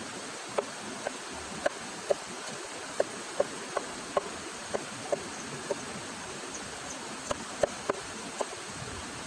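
A run of short, sharp taps, about two a second and somewhat irregular, over a steady hiss.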